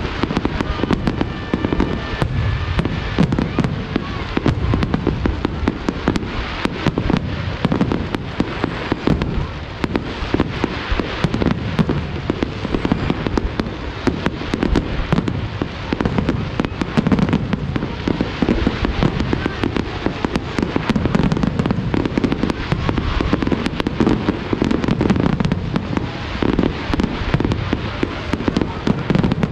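A large aerial fireworks display going off in rapid succession: many overlapping bangs and crackles over a continuous low rumble, with no let-up.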